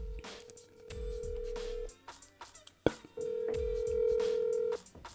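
Phone ringback tone of an outgoing call: a steady tone twice, each lasting under two seconds, with a sharp click between them. The call goes unanswered. Background music with a steady beat plays underneath.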